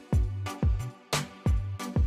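Background music with a steady drum beat and a bass line, funk-like in feel.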